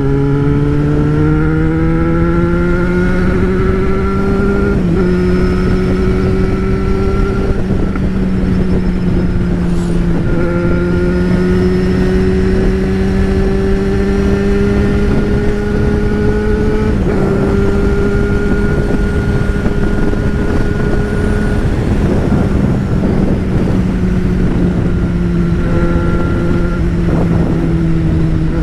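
Yamaha XJ6's 600 cc inline-four motorcycle engine running under way at a fairly steady speed, its note rising slowly at the start and shifting a little a few times, over steady rushing wind and road noise.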